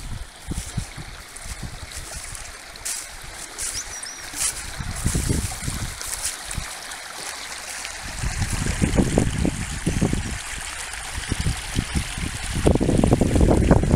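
Shallow creek trickling and rippling over rocks, a steady rush of water. Low gusts of wind buffet the microphone, strongest about eight seconds in and again near the end.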